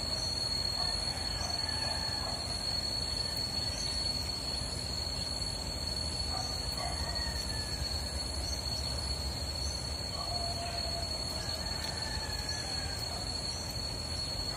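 Steady low rumble of road traffic with passing trucks, with a constant high-pitched whine and faint short squeaks and chirps scattered over it.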